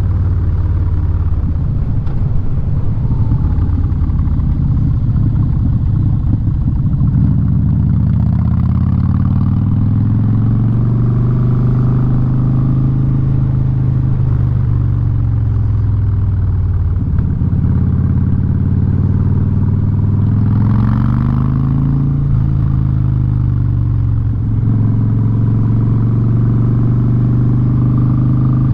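Harley-Davidson Street Bob's V-twin through a Vance & Hines exhaust, heard while riding. The engine runs steadily at first, then its pitch rises and falls a few times as the bike accelerates and shifts, and it settles into a steady cruise near the end.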